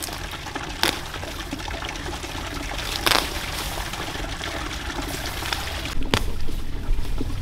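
Water pouring and trickling, with a few short knocks or splashes about one, three and six seconds in.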